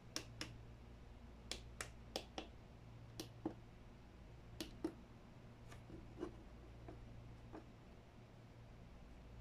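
Buttons and knobs on a small V8 live sound card clicking as they are pressed and turned, in irregular clicks that often come in pairs, over a steady low hum.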